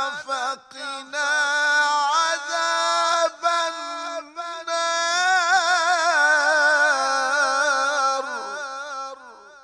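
A male qari reciting the Quran in melodic tajweed style: long drawn-out phrases with a wavering, ornamented pitch and a few brief pauses, trailing off near the end.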